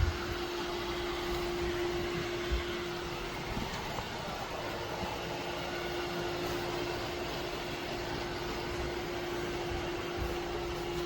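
Eureka robot vacuum running: a steady whir with a constant hum.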